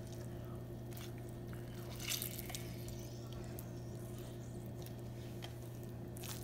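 Lemon squeezed by hand over a glass bowl: soft, faint squishing, a little louder about two seconds in, over a steady low hum.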